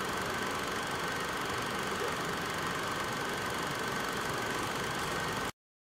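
Steady background hiss and hum with a faint, high, unbroken whine. It cuts off abruptly to dead silence near the end.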